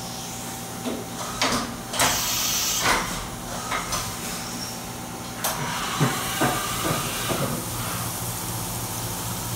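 Fadal VMC 4525HT CNC vertical machining center milling metal under flood coolant: a steady hiss of coolant spray over the machine's hum, with irregular sharp knocks and cracks from the cut, and a louder surge of hiss a couple of seconds in.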